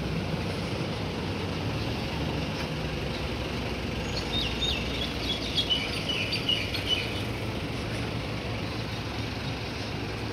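Town street ambience: a steady low rumble of traffic. From about four to seven seconds in, a bird chirps a quick run of short high notes.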